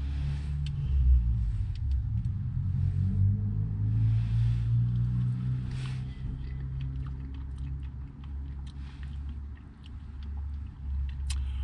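Low steady rumble of a Honda N-BOX's engine idling, heard inside the car's cabin. Over it come scattered small clicks and short rustles from handling a soft-serve cup and spoon while eating.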